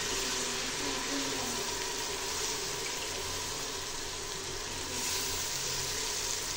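Hot oil and masala sizzling in a pressure cooker as handfuls of wet, soaked moong dal are dropped in: a steady hiss.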